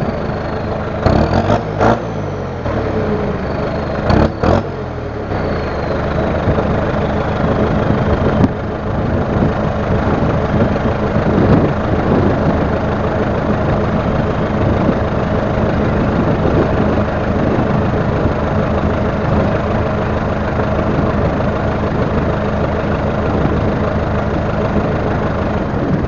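John Deere 5820 tractor's diesel engine heard at its exhaust stack, its revs falling away over the first few seconds and then settling into a steady idle. A few brief thumps come about one to two seconds and four seconds in.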